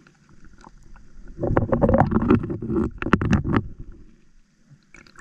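Seawater surging and splashing over rocks, swelling for about two seconds and then dying away.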